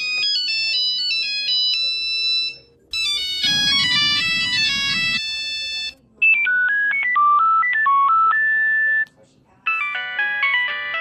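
Nokia mobile phone ringtones played one after another: four short electronic melodies of quick stepping notes, each lasting about three seconds, with brief gaps between them. The second is fuller than the others, with a low accompaniment under the tune.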